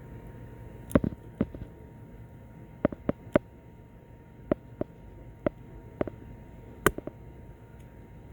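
About a dozen small, sharp clicks and taps at irregular intervals, in little clusters: plastic and metal clicking as a wire-harness connector is handled and worked with a depinning tool, pressing the lock tab and pushing at the terminal pin.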